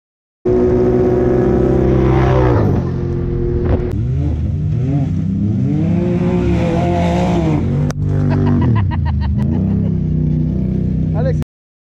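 Side-by-side UTV engines running and revving, their pitch rising and falling repeatedly as the vehicles drive off, with more than one engine heard at once. The sound starts half a second in and cuts off suddenly near the end.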